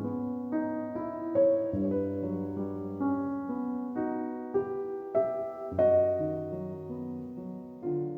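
Soft background piano music with sustained chords and a low bass line.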